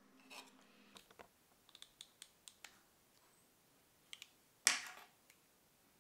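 Faint handling sounds of a clear plastic clip and a partridge feather: a run of light, sharp clicks and taps. Near the end comes one short, louder scratchy sound.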